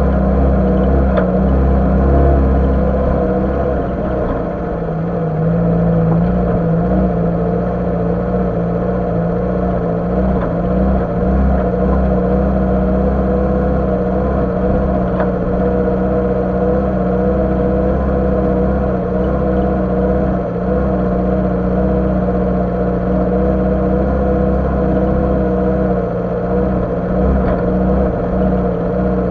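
Lada Niva's four-cylinder engine running steadily as the car moves slowly along a grassy track, its note holding an even pitch after a slight dip in loudness about four seconds in.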